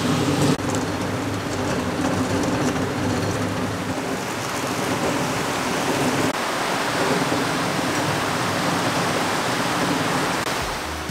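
Steady rush of a fast glacial river flowing below, with a low hum under it for about the first six seconds that then fades.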